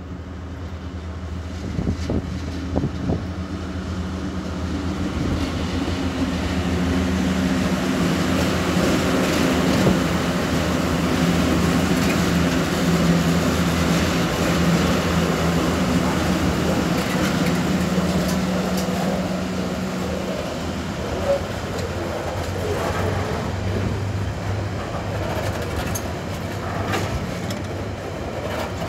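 TasRail TR-class diesel-electric locomotives running past under power at the head of a freight train. The engine hum grows louder over the first several seconds and drops away about twenty seconds in. The rolling rumble of the wagons follows, with scattered clicks from the wheels on the rail.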